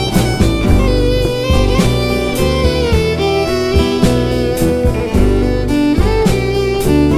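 Instrumental break of a folk-country song: a fiddle plays the melody over guitar and a steady beat.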